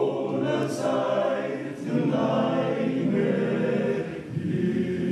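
Men's choir singing a cappella: several low male voices holding sustained chords in phrases of about two seconds, breaking briefly twice.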